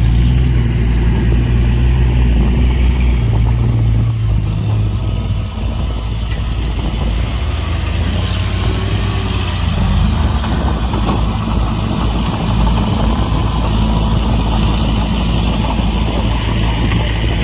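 Heavy diesel engine of earthmoving machinery running steadily, its low note easing off about four seconds in and picking up again about ten seconds in.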